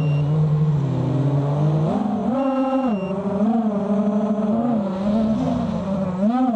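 Onboard sound of a 5-inch FPV quadcopter: its Cobra 2206 2100kv motors on 5x4.5 props whining. The whine stays low for about two seconds, then rises sharply and swings up and down as the throttle changes.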